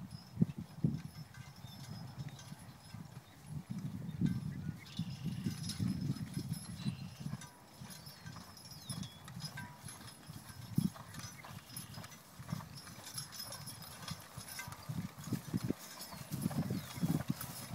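Team of three Belgian draft horses walking as they pull a plow: irregular hoofbeats and harness sounds.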